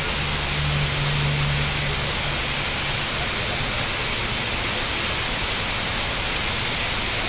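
Multnomah Falls, a tall two-tiered waterfall, rushing as a steady, even hiss of falling water. A low hum underneath fades out about three seconds in.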